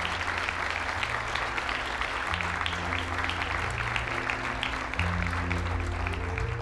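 Audience applauding steadily over slow background music with held low notes that change about every second.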